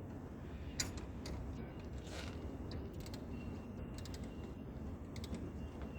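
Scattered short metallic clicks and clinks from hand tools working the bolts of heavy cable lugs, some in quick clusters, over a low steady background rumble.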